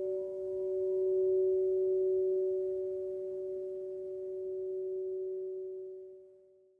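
Crystal singing bowl ringing with two steady, pure sustained tones that swell about a second in, then fade away near the end.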